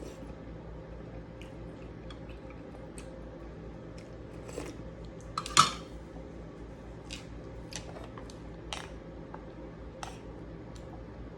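Cutlery clinking and scraping against dishes while eating, a scatter of light clicks with one louder clink about halfway through.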